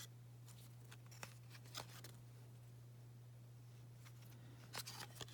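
Near silence with a steady low hum, broken by a few faint soft clicks from trading cards being handled, about a second in, near two seconds and a small cluster near the end.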